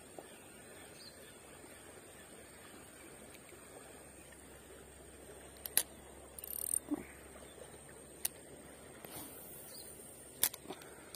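Faint outdoor background with a thin steady high tone, broken by a few sharp clicks and a short scrape from handling a Daiwa Revros 1000LT spinning reel and ultralight rod, about halfway through and again near the end.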